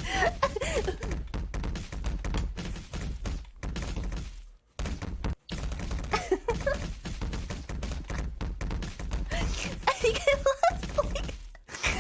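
A rapid, irregular run of knocks and thuds, broken by a short pause about halfway through, with brief voice-like sounds mixed in.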